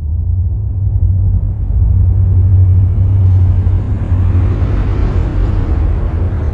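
A whoosh-style transition sound effect: a loud, deep rumble under a rushing noise that swells and climbs higher, peaking about five seconds in, then falls away.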